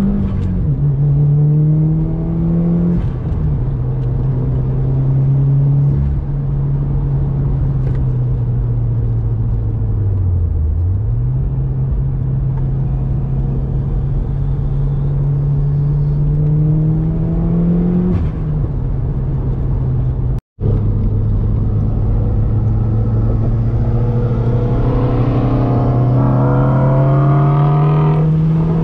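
Modified Subaru WRX's turbocharged flat-four, fitted with an aftermarket catback exhaust, heard from inside the cabin while cruising: a steady engine drone that slowly rises in pitch as the car gathers speed, dips briefly and changes pitch at gear changes. The sound cuts out for an instant about two-thirds of the way in, then the drone climbs steadily again.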